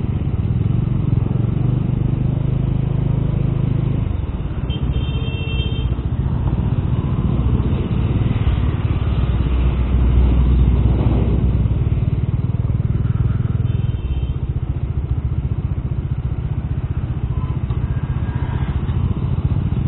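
Bajaj Dominar motorcycle's single-cylinder engine running while riding through town traffic, with wind and road noise; the engine note eases off about four seconds in. Two brief high beeps sound, one about five seconds in and another near fourteen seconds.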